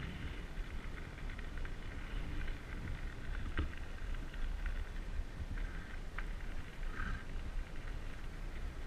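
Bicycle rolling along a gravel path: a steady low rumble of tyres on gravel and wind on the microphone, with a few faint clicks.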